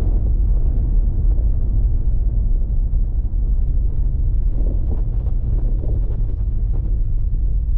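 Car on the move: steady low engine and road rumble.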